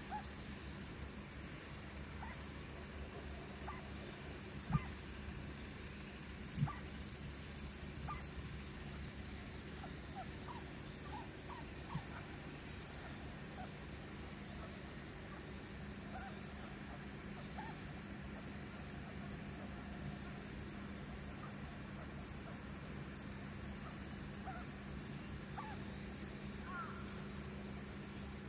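An unidentified animal's short cries, repeated at irregular intervals, with two much louder sharp cries a few seconds in; the uploader cannot tell whether it is a dog or a fox.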